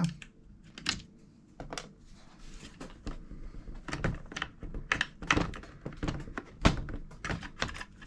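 Irregular light clicks and taps of hands handling the open aluminium Mac mini case and its internal parts, sparse at first and coming thicker from about three seconds in.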